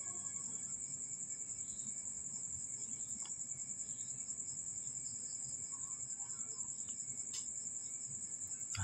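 Crickets chirping in a steady, high-pitched, fast even pulse, with a few faint clicks.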